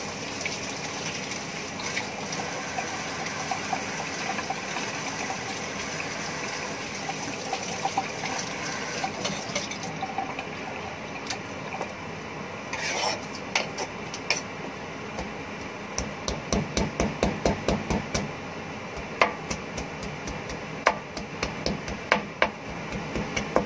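Tap water running into a sink for about the first ten seconds, then a kitchen knife chopping garlic on a wooden cutting board: a quick run of chops, then slower single strikes.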